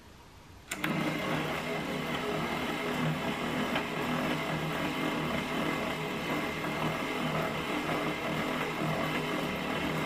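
Toy washing machine's small electric motor switching on with a click about a second in, then running steadily with an even hum as it turns the drum.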